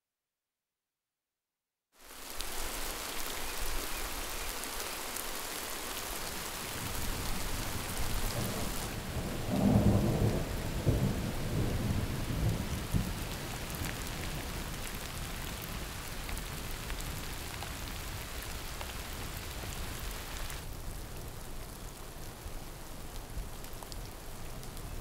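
Steady rain falling, with a low roll of thunder building and fading about ten seconds in. The rain starts after a couple of seconds of silence.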